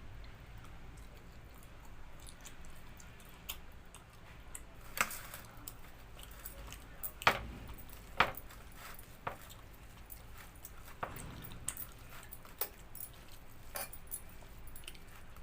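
Eating a meal of rice and dal by hand: scattered sharp clicks and small knocks of hand, food and plate, the two loudest a little past the middle, over quiet mouth sounds.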